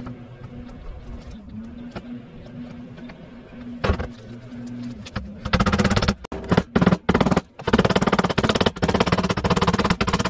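Hammer tapping the steel door skin of a classic Mini door, folding its edge over the door frame: a few faint taps at first, then from about halfway a rapid, dense run of sharp taps with short pauses.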